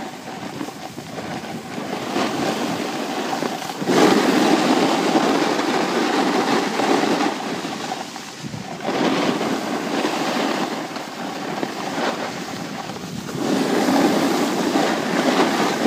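Hiss and scrape of sliding over packed snow, swelling in surges that last a few seconds.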